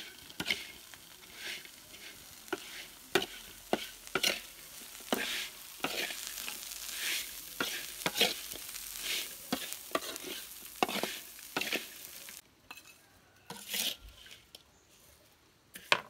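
Cicadas stir-frying in a metal wok: a metal spoon scrapes and stirs through the sizzling insects again and again, at irregular intervals. About twelve seconds in the sizzling hiss drops away, leaving a few last scrapes.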